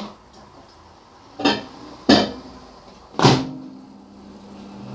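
A microwave oven being shut and set going: three sharp clunks from the door and controls, then the oven starts running with a steady low hum.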